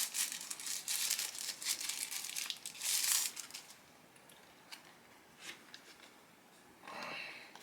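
Thin plastic film crinkling and crackling as the backing liner is peeled off a phone screen protector, dense for about three and a half seconds, then a few faint ticks and a brief softer rustle near the end.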